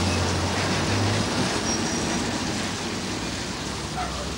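Street traffic: a car's low engine hum stops about a second in, leaving a steady hiss of road noise that slowly eases.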